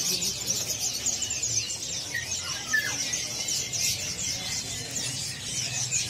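Many caged birds chirping and twittering at once: a dense, unbroken chorus of quick, high chirps.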